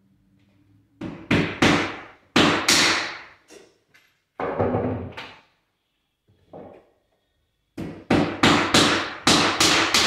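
Steel hammer driving small nails into the angle trim on a laminate stair edge: sharp, ringing strikes in two quick runs, with a pause in the middle.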